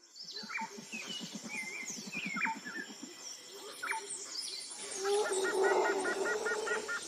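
Birds chirping and calling in a nature soundscape, with short falling chirps and warbles and a low rapid pulsing of about ten pulses a second in the first few seconds. From about five seconds in it grows louder and busier, with a quick repeated trill.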